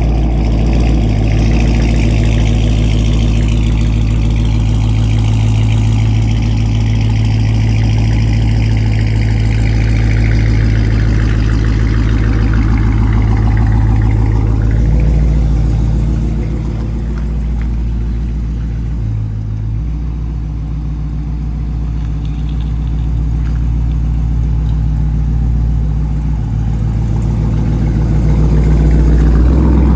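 2021 Dodge Charger R/T's 5.7-litre Hemi V8 running loud and steady through an exhaust with the mufflers and catalytic converters deleted. The revs rise a little near the end.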